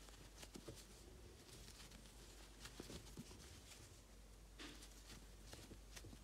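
Near silence with faint, scattered light rustles and soft clicks of a crochet hook and yarn being worked stitch by stitch.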